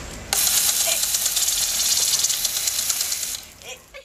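Water spraying from a garden-hose sprinkler with a loud hiss that starts suddenly about a third of a second in and fades away near the end.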